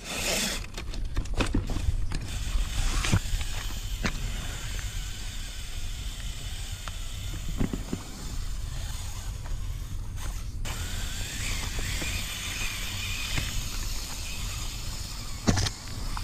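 Axial Capra radio-controlled rock crawler's electric motor and geared drivetrain whining as it crawls, with its tyres crunching over loose gravel and shell. Scattered sharp knocks from the wheels and chassis hitting rock, the loudest near the end.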